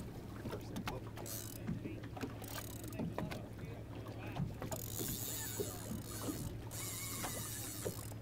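A boat sitting on open water with a steady low engine hum. Water laps and knocks against the hull in small irregular taps, and wind rushes over the microphone in the second half.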